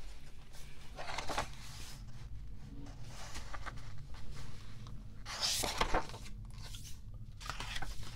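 Pages of a picture book being turned by hand, the paper rustling twice: once about a second in and more loudly a little past five seconds.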